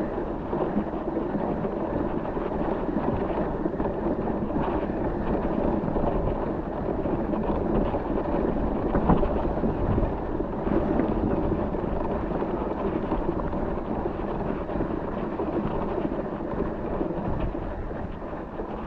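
Steady rough rumble of a mountain bike being ridden over a trail, with a sharper jolt about nine seconds in.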